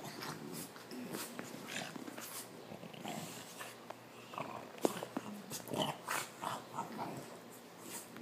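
Two French bulldogs play-fighting, with irregular short growls and snorting breaths. One sharp click about five seconds in.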